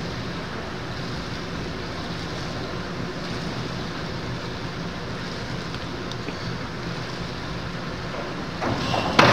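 Steady low hum and hiss of an indoor pool hall. Near the end a diving springboard bangs once, sharply, as the diver takes off.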